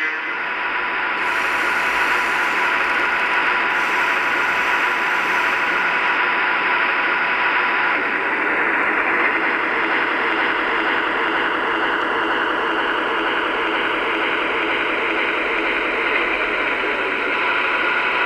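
Sound speaker of an HO-scale MTH Milwaukee Road Little Joe E20 model electric locomotive playing its standing idle sound: a steady hiss with a few constant tones, static-like through the small speaker.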